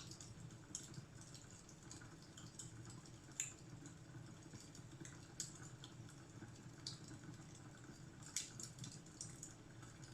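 Fireplace fire crackling: faint, irregular small snaps and pops, a few sharper ones, over a steady low rumble.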